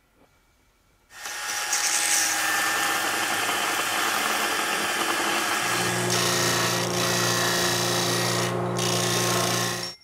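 Delta disc sander running with a copper bar pressed against the spinning abrasive disc: a steady grinding hiss that starts about a second in and cuts off abruptly just before the end, with a low hum coming in about halfway through.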